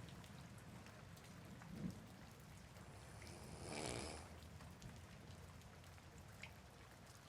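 Soft rain falling steadily and quietly, with one louder rushing swell about four seconds in.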